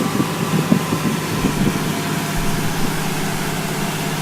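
An engine running steadily with a low, even hum over a hiss.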